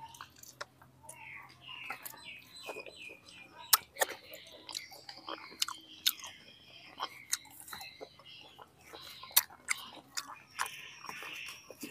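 Close-up chewing of braised pork intestine, a run of wet mouth smacks and sharp clicks.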